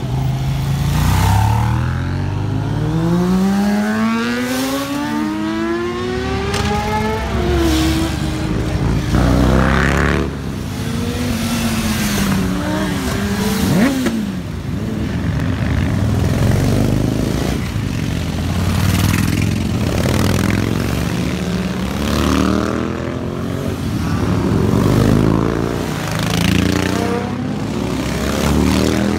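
Motorcycle engines revving and accelerating as the bikes ride past one after another. Their pitch climbs steeply over the first several seconds, and the sound then rises and falls as more bikes go by.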